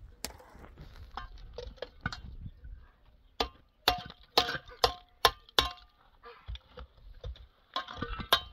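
Steel mason's trowel striking a concrete block: sharp, ringing metallic clinks, a quick run of about six at roughly two a second midway through and a few more near the end.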